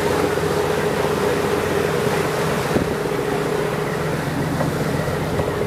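Boat's engine running steadily under way, a constant droning hum over the rush of water and wind.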